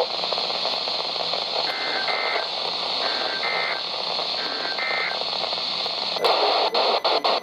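Weather radio static hiss with three short bursts of the SAME digital alert header, a buzzy two-tone data warble repeated about a second apart, which announces a new alert message. Near the end comes a louder burst of crackling static with sharp clicks.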